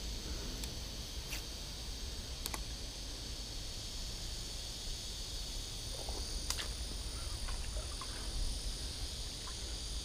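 Steady high-pitched chorus of insects, crickets or similar, over a low rumble, with a few sharp clicks scattered through.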